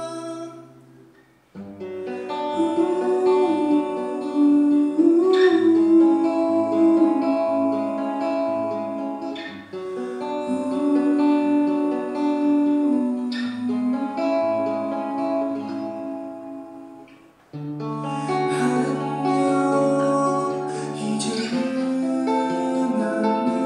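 A man singing live to keyboard accompaniment on a Yamaha CP4 stage piano. The music drops out for about a second near the start and again briefly about two-thirds of the way through, then resumes.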